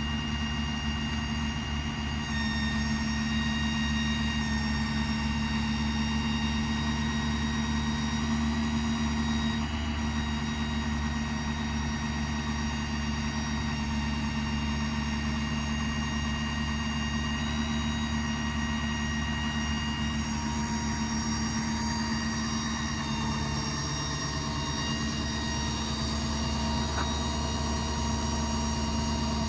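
Ford 6.7 Power Stroke V8 diesel running steadily at idle, with steady high whining tones over the engine drone that shift slightly a couple of times.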